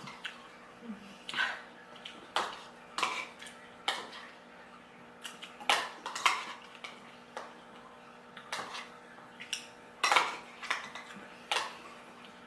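Spoons clinking and scraping against bowls as grapes are scooped up one at a time, in sharp irregular clicks about one or two a second.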